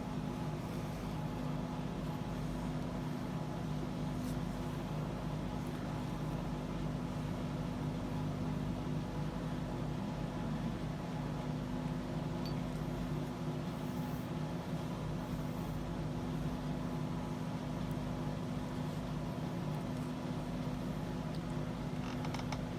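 Whole-house fan running loud: a steady motor hum under an even rush of air.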